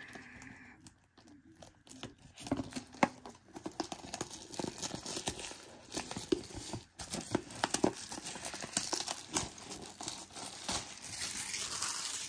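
Clear plastic shrink wrap being torn and peeled off a cardboard trading-card box, crinkling with many irregular sharp crackles.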